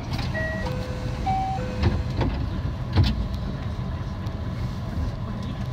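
Steady low rumble inside the rear cab of a JR West 323 series electric train. Near the start there is a quick run of short electronic tones at changing pitches, and there are two knocks about two and three seconds in, the second the loudest.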